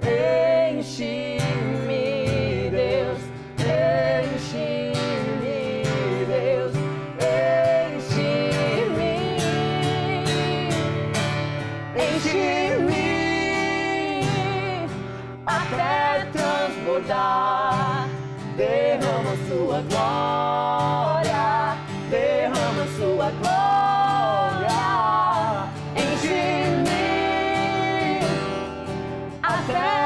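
Acoustic guitar strummed steadily under voices singing a gospel worship song in Portuguese, with long held, wavering notes.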